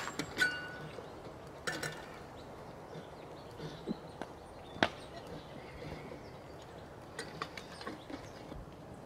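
Stainless steel camp percolator's lid being lifted off and set back on: a few sharp metal clinks and taps, one early clink ringing briefly, the loudest about five seconds in.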